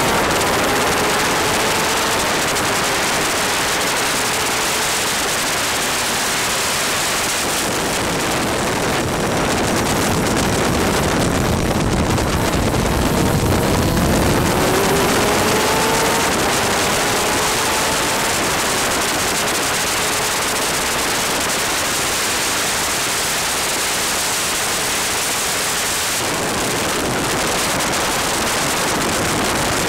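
Steady rush of wind and wet spray over an onboard superkart camera's microphone, loud and even. Behind it the kart's two-stroke racing engine comes through only as a faint whine, rising slowly in pitch under acceleration through the first several seconds and again from about halfway.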